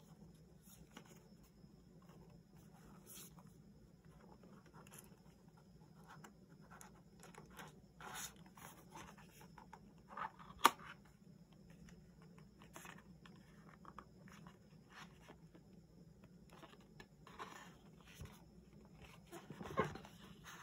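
Hands handling a phone's cardboard packaging: paper-board sleeve and card folder sliding, rustling and scraping, with one sharp click about ten seconds in and a louder rustle near the end.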